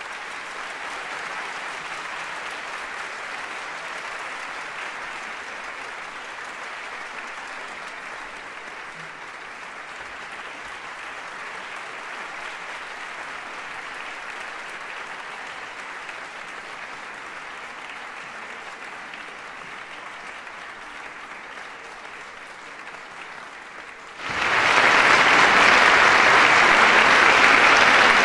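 Audience applauding steadily in a concert hall after a piano concerto ends. About 24 seconds in the applause abruptly becomes much louder and brighter.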